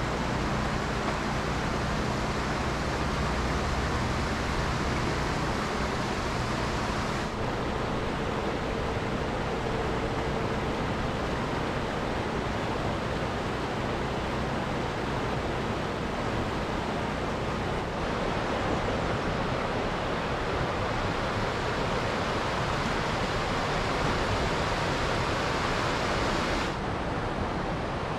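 Rushing water of a canyon river and waterfall: a steady, loud hiss, with a faint low hum under it for the first two-thirds.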